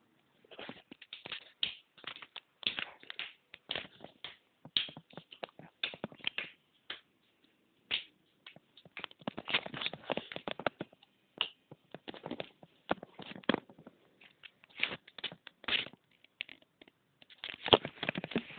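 Irregular taps, clicks and scuffs: many short knocks in uneven clusters with brief gaps, loudest near the end.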